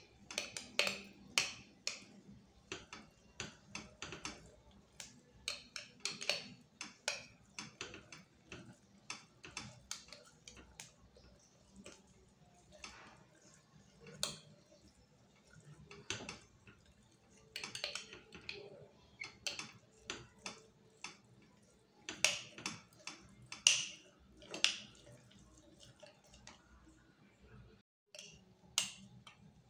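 Metal spoon clinking and scraping against the inside of a glass jar while stirring thick cooked condensed milk, in irregular clicks and knocks throughout.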